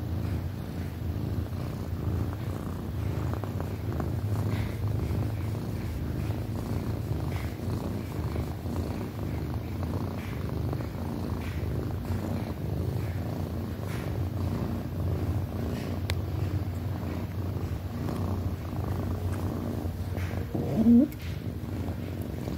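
A black domestic cat purring steadily while dozing and being stroked, a close, low rumble. Near the end there is one brief, louder sound that rises in pitch.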